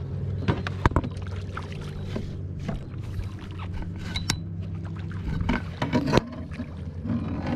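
Boat motor running steadily at a low idle, with scattered knocks and clatters on the boat, the loudest about a second in and again about six seconds in.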